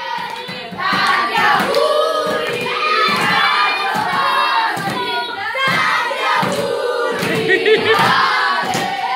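A group of boys singing and shouting together in chorus, loud and lively.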